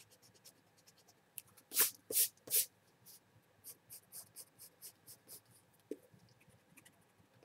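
Pencil scratching on sketchbook paper: three firmer strokes about two seconds in, then a run of short, lighter strokes, about four a second.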